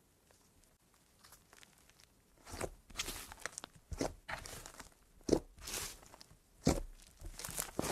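Thick white slime being pressed and folded by hand, giving a string of short, uneven squishing sounds that begin about two and a half seconds in.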